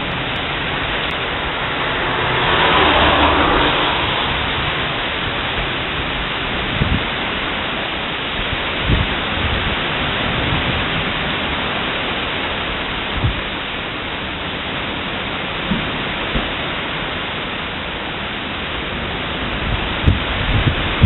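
Heavy thunderstorm rain pouring steadily onto a road and paving, a continuous hiss that swells louder for a moment about two to four seconds in. A few short low thumps break through now and then.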